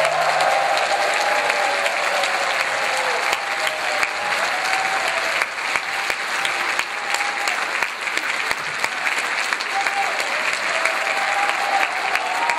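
Concert-hall applause: many people clapping steadily after a performance.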